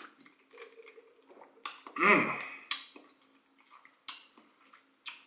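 Drinking from a plastic shaker cup: sips and swallows with several short, sharp mouth clicks and lip smacks, and a short vocal sound about two seconds in.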